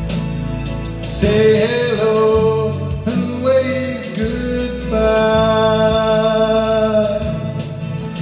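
A man singing long held notes into a handheld microphone over a recorded backing track with guitar.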